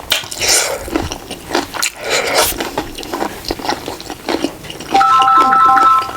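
Close-up eating sounds, biting and chewing with a few crunches. About five seconds in, a loud electronic tune of three repeating notes cuts in over it.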